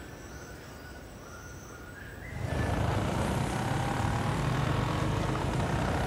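A small motorcycle riding along, its engine running steadily, coming in suddenly about two seconds in and much louder than what came before. Before it, quieter outdoor ambience with a few faint high steady tones.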